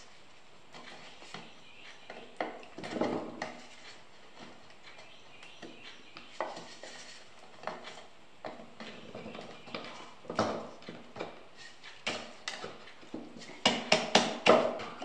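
Irregular wooden knocks and clicks as end-grain wood discs are handled and pushed onto their connecting dowels, with a quick run of louder knocks near the end.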